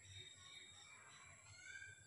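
Faint birds chirping in the background, a run of short, high calls.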